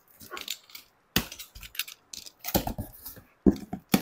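A blade cuts through packing tape on a cardboard carton, then the cardboard flaps are pulled open with irregular scrapes, crackles and clicks. The loudest handling comes about a second in, around two and a half seconds, and just before the end.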